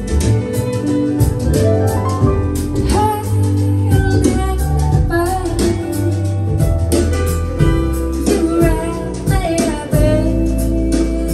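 A song with singing, guitar and drums played back over KEF LS50 Meta bookshelf speakers with a subwoofer, heard in the room, with a strong, full bass line.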